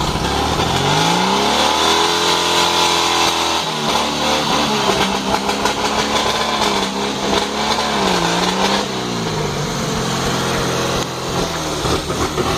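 Off-road vehicle engine revving hard: the revs climb over the first two seconds, stay high with a couple of brief dips, and rise again near the end.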